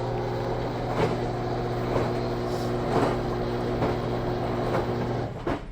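Drum washing machine drain pump motor running with a steady hum and a rumbling, grinding pulse about once a second, then stopping shortly before the end. It is the noise of a pump motor whose bearing has failed.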